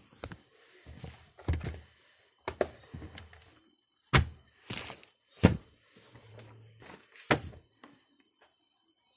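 Handling noise from a phone: a string of knocks and thumps with rubbing against the microphone, the sharpest about four and five and a half seconds in.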